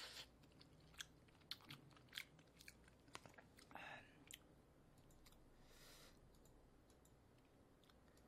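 Faint close-microphone chewing of a spoonful of rice and stew, with scattered wet mouth clicks and smacks over the first four seconds or so, then near quiet.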